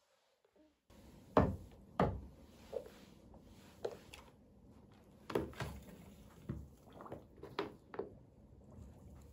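A string of knocks and clatters from household objects being handled and set down during cleaning, about nine in all, with the two loudest coming close together shortly after the start.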